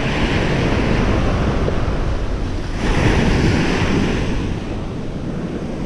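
Ocean surf breaking and washing up the sand, with wind buffeting the microphone; a wave swells up about three seconds in.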